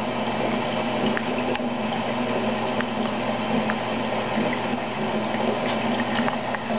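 Bathtub faucet running into a tub of bubble-bath foam: a steady rush of filling water with a low hum under it and scattered faint clicks.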